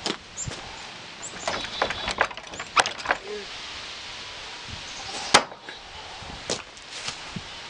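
Modified table fork, flattened and ground to a point, thrown point-first and striking a plywood target board: a series of sharp knocks and clicks, the loudest about five seconds in.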